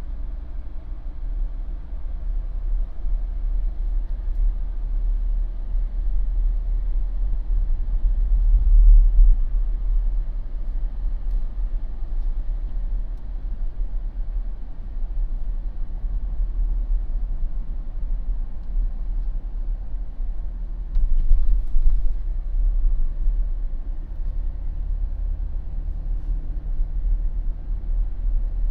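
A Jeep driving slowly: a steady low rumble of engine and tyres on the road, swelling briefly louder twice.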